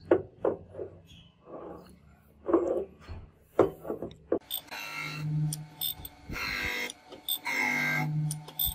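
Heavy steel block knocking as it is set down and shifted by hand on a surface grinder's magnetic chuck. About five seconds in, the grinder wheel starts grinding the block's top in repeated passes, each about a second long, with a low hum under each pass.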